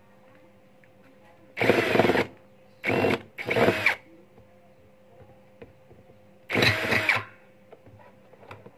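Cordless drill/driver running in four short bursts on screws in the plastic base of a backpack sprayer, its motor pitch rising as each burst starts. The middle two bursts come close together.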